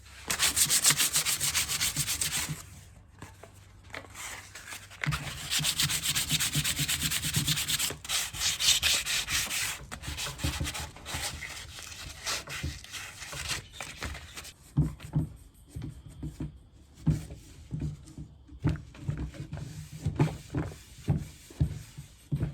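Sandpaper rubbed back and forth by hand over a bamboo table, in two loud spells of rapid strokes, then softer rubbing broken by light knocks for the second half.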